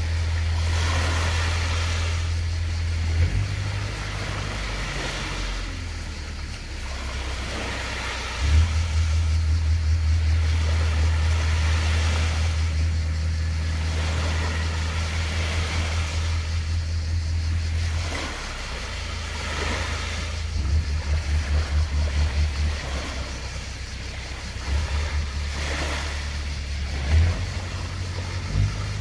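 A motor vehicle's engine running on the move, its low rumble changing level in steps every few seconds, with wind noise swelling and fading on the microphone.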